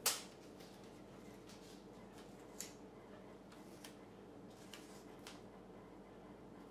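A sharp click at the very start, then faint scattered clicks and crinkles of masking tape being pulled from the roll and handled, over a low steady hum.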